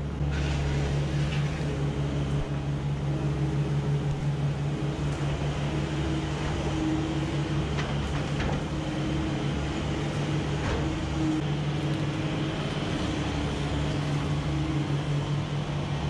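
Kubota SSV75 skid steer's diesel engine running at a steady speed while it spreads straw bedding, with a few faint knocks of the machine working.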